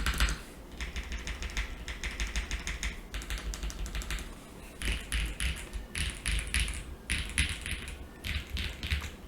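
Typing on an ai03 Vega mechanical keyboard with stock, factory-lubed Gateron Pure Berry linear switches, a polycarbonate plate with plate and case foam, and GMK keycaps. The keys clack in quick runs broken by short pauses.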